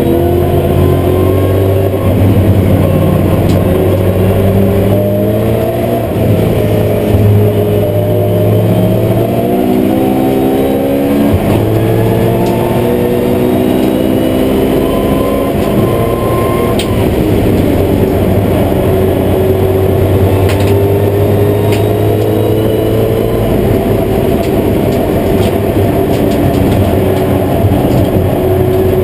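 BMW M3 GT4's V8 engine at racing speed, heard from inside the cabin. Its pitch climbs and drops back several times in the first twelve seconds as it goes through the gears, then it holds steady at high revs.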